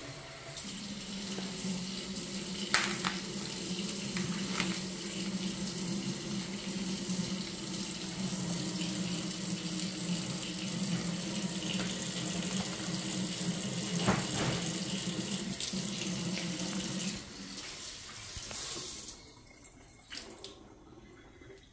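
Kitchen faucet running steadily into a stainless steel sink, with a few light knocks, until the flow stops about 17 seconds in.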